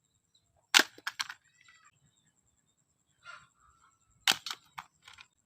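Sharp clacks in two quick groups: three about a second in, and four more over the last second.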